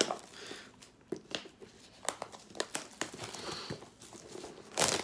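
Plastic shrink wrap on a trading-card box crinkling and tearing as it is picked at and pulled off, in irregular crackles, with one louder rustle near the end.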